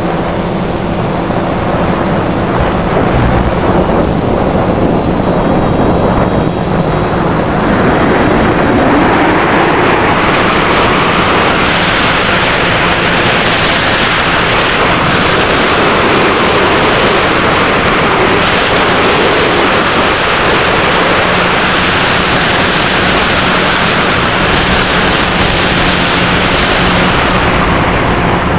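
Drone's motors and propellers humming steadily, heard on its own onboard microphone, with wind rushing over the microphone that swells from about eight seconds in and eases near the end.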